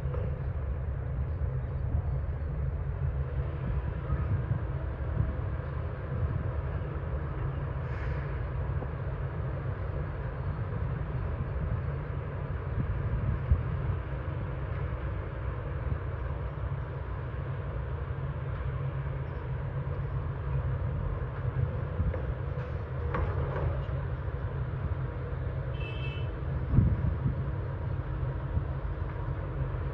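Heavy diesel earthmoving machinery running with a steady low rumble. A few brief higher-pitched sounds break in, and there is a short knock near the end.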